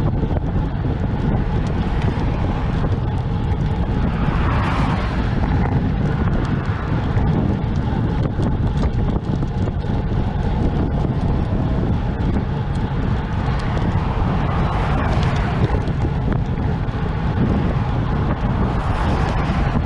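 Wind buffeting the microphone of a moving bicycle, with road traffic alongside; vehicles swell past about four seconds in, again around fifteen seconds and near the end.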